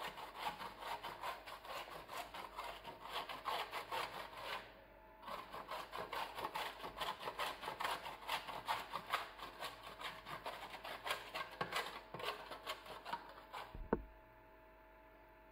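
Soft pastry dough being grated on the coarse side of a metal box grater: a fast run of rasping strokes, with a short pause about five seconds in. The grating stops with a single knock near the end.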